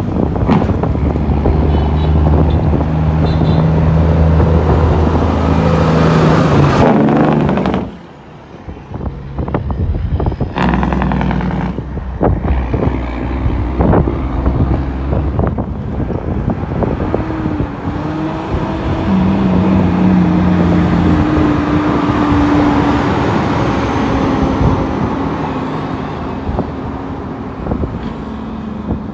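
Heavy diesel truck engine running steadily. About eight seconds in the sound drops off sharply, then a run of knocks and clunks follows. The engine settles back into steady running with a held tone.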